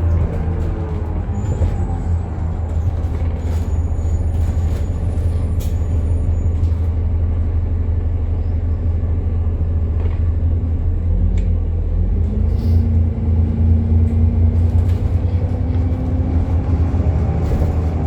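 Alexander Dennis Enviro400 MMC bus running with really loud axle noise, a heavy low drone under the engine. The engine's pitch falls at the start, holds with a steady whine for a few seconds in the later part, and rises again near the end as the bus picks up speed.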